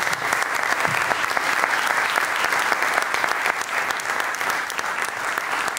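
Audience applauding steadily after a talk ends.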